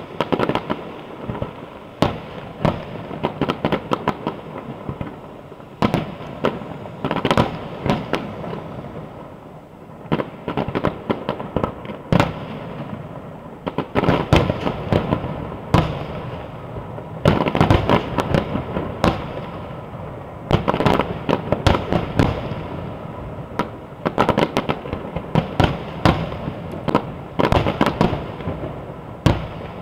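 Fireworks display: volleys of sharp bangs and crackling from bursting aerial shells, coming in dense clusters every few seconds, with a steady rumble and crackle filling the gaps between volleys.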